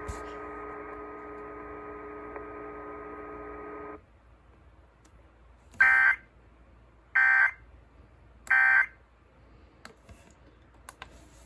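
Three short bursts of Emergency Alert System data tones, about 1.4 s apart: the end-of-message signal that closes a NOAA Weather Radio weekly test. Before them, a steady hum of several held tones cuts off about four seconds in, and a few faint clicks follow near the end.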